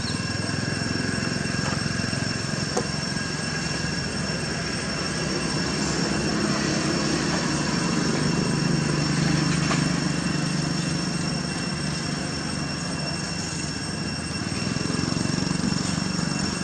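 A steady low engine-like rumble that swells about halfway through and again near the end, with a few steady high-pitched tones over it.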